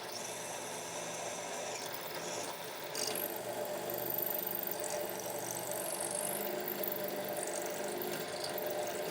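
Electric drill running steadily as it bores pin holes through forged rebar handle halves. It grows a little louder about three seconds in.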